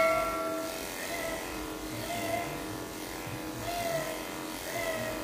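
Electric pet hair clippers buzzing steadily against background music, which has short pitched notes every second or so.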